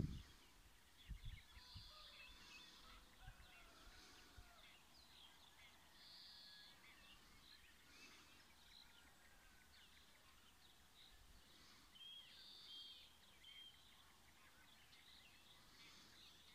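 Faint outdoor ambience with many small birds chirping and twittering. A few low thumps in the first few seconds.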